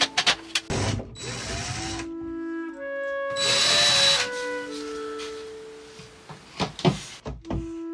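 Background music with held notes, over which a power drill runs in two short whirring bursts, the second about three seconds in and the louder, followed by a few sharp clicks near the end.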